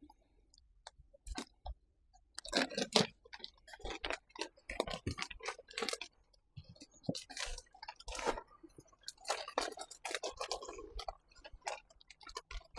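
Plastic mailer bag crinkling and rustling in irregular bunches as a folded item is worked into it, with small clicks and crackles.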